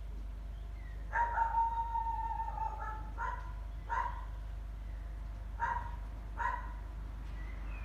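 Dog barking: one long, drawn-out bark about a second in, then four short barks spaced about a second apart.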